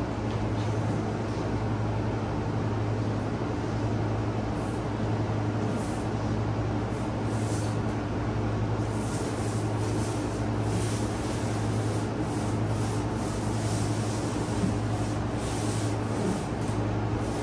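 A machine running steadily: a constant low hum under an even rushing noise.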